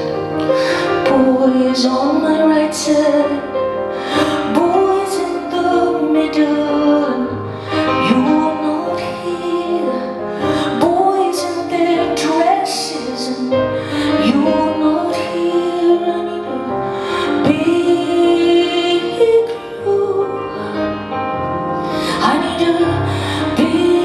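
A woman singing live with vibrato, accompanying herself on a Bösendorfer grand piano.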